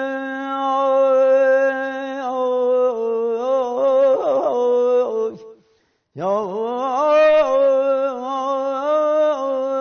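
A man singing Persian classical avaz unaccompanied: long held notes broken by quick trilling tahrir ornaments, in two phrases with a short breath between, about five and a half seconds in.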